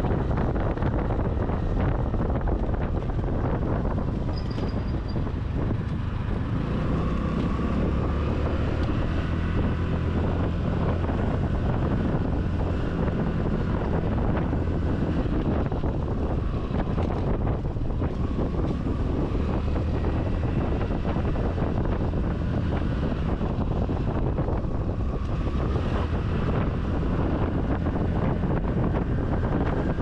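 Wind buffeting the microphone on a moving Honda Navi scooter, over the steady running of its small single-cylinder engine, whose pitch rises and falls faintly in places. A brief high squeak about four and a half seconds in.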